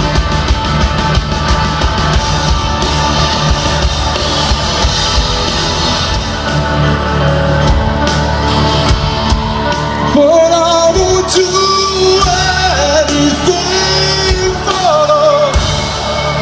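Rock band playing live, loud with drums, bass and guitars; about ten seconds in the drums and bass thin out and singing carries the melody over lighter accompaniment.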